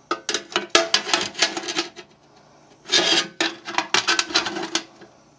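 Metal battery box being worked in and out of a toy electric boat's battery compartment, scraping and clicking against the batteries and hull in two quick bursts of rattling scrapes.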